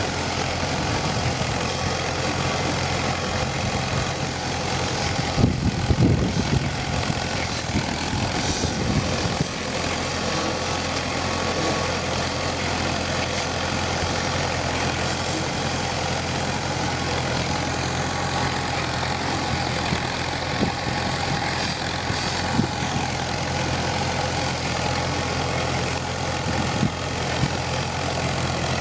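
Homemade tractor's engine running steadily, with a few louder knocks and rattles about five to nine seconds in.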